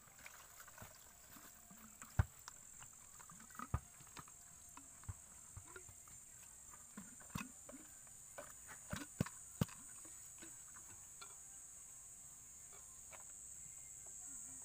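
Scattered clicks and knocks of plastic and metal as a diesel fuel filter housing and its bowl are handled and set down, with a few sharp knocks in the first ten seconds and fewer after that.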